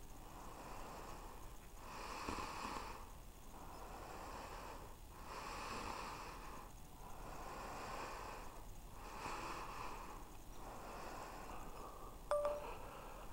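A person breathing slowly and deeply right at the microphone, about seven breaths, each swell a second or more long. A short, sharp squeak near the end is the loudest sound.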